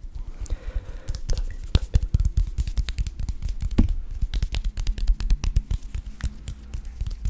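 Hands rubbing and sliding against each other close to a microphone: skin on skin, heard as quick, irregular dry crackles and swishes.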